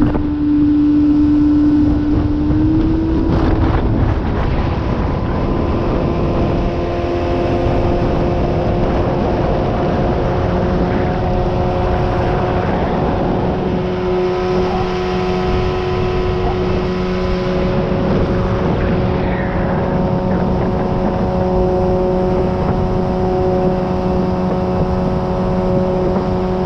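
Outboard motor of a 16-foot Bass Tracker boat running at a steady cruising speed. Its pitch rises slightly a few seconds in and then holds.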